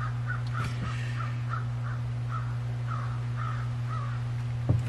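A bird calling in a quick run of short, high chirps, about three a second, over a steady low electrical hum.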